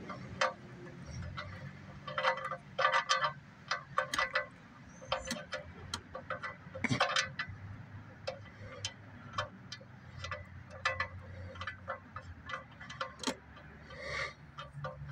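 Sharp metallic clinks and ticks of a hand wrench on the oil drain bolt as it is worked back in, with a quick run of clicks about two to three seconds in.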